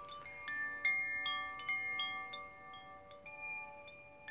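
Metal chimes rung by hand: a string of bright, irregular tinkling notes, each ringing on and overlapping the others.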